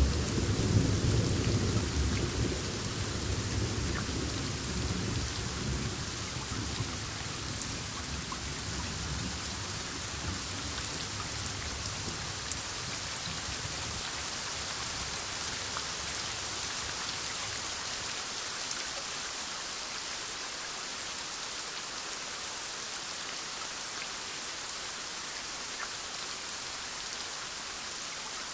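Heavy rain falling steadily during a thunderstorm, with a low rumble of rolling thunder at the start that fades away over the first half, leaving only the rain.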